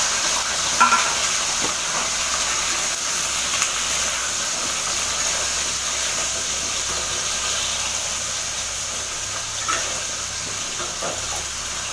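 Pointed gourd (potol) sizzling steadily as it fries in hot oil in a steel kadai, with a short clink of metal about a second in.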